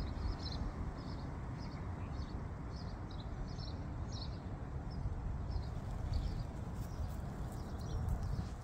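A small bird chirping repeatedly in short high notes, two or three a second, pausing for a couple of seconds past the middle, over a low outdoor rumble.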